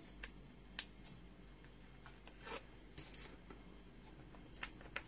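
Cardstock and paper being handled and pressed into place: a few faint light clicks and taps, with two short papery rustles around the middle.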